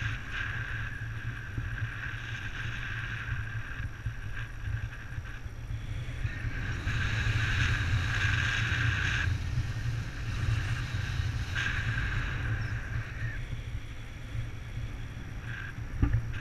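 Wind rushing over the camera microphone during a paraglider flight: a steady low buffeting, with a hiss that swells and fades for a couple of seconds at a time, loudest around the middle.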